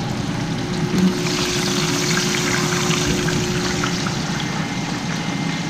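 Hot oil sizzling and tomato stew bubbling on the stove, a steady crackle over a low hum. A soft knock comes about a second in, as a piece of fried snapper is moved with tongs, and after it the crackle gets stronger.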